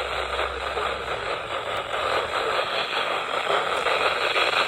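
Weather radio receiver hissing with static, no voice on the channel. A low hum sits under it for the first second or so.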